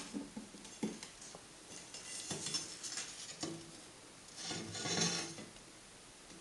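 A cold-bent steel handrail section handled on a steel workbench: several light metal knocks spread over the first few seconds, then a longer scraping rattle about five seconds in, the loudest part.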